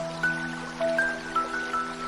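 Gentle ambient music: a held low chord with a slow melody of soft bell-like notes, over an even hiss of noise.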